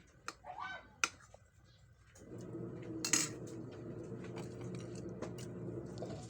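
Eating utensils clinking against a plate or bowl in a few sharp clicks, with a short noisy burst about three seconds in. A steady low hum comes in about two seconds in.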